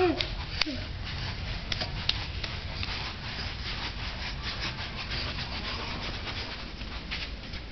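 Steady rubbing and scuffing noise with many small taps, from the camera being handled and carried along.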